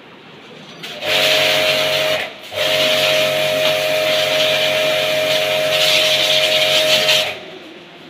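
Portable electric pressure washer running as its jet sprays water into a split air conditioner's indoor unit: a steady motor hum with a hiss of spray. It starts about a second in, cuts out for a moment just after two seconds, and stops shortly before the end.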